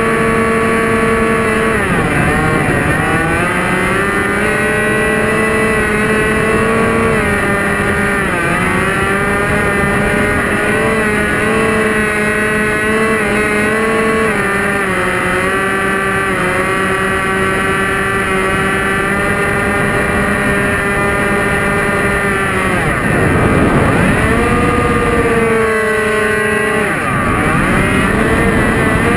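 Electric motor and propeller of a HobbyZone Delta Ray RC plane, heard from a camera on the airframe, running as a steady whine. Its pitch dips and climbs back several times, and wind rushes over the microphone during a steep manoeuvre near the end.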